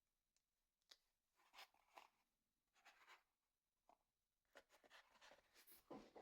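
Very faint scratching and small clicks: light handling or scraping sounds, a few short strokes with denser ones near the end.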